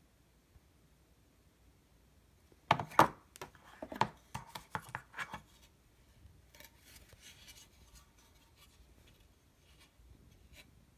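Hands handling a PCI modem card: a quick run of sharp clicks and taps, about three to five and a half seconds in, then fainter rustling and one more small click near the end.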